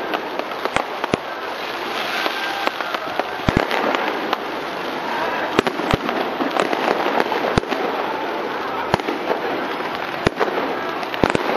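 Aerial fireworks display: about a dozen sharp bangs of bursting shells, irregularly spaced, over a continuous dense crackle and hiss from the exploding fireworks.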